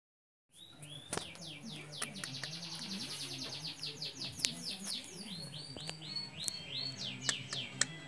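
Begging chirps of a very young lovebird chick being spoon-fed: repeated short high cheeps, some falling and some rising, with a fast run of chirps about two seconds in. A low hum runs underneath, and there are a few sharp clicks.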